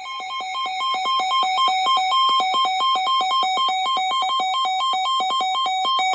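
Electronic emergency alert tone warbling rapidly between two pitches, about six or seven notes a second, which cuts off abruptly at the end. It is the alert sounded ahead of a National Weather Service flood warning broadcast.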